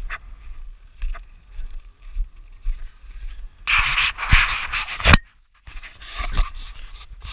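Footsteps crunching on snow at a walking pace. About halfway through, a loud rustling and rubbing on the microphone drowns them out, cuts out to silence for a moment, then carries on.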